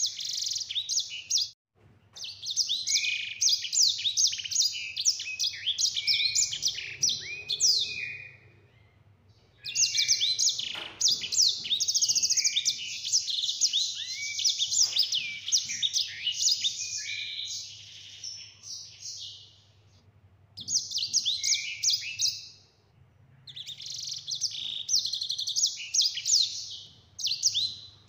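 Caged sanger finch singing long, fast rolling phrases of high twittering notes and trills. The song comes in several bouts broken by short pauses, over a faint steady low hum.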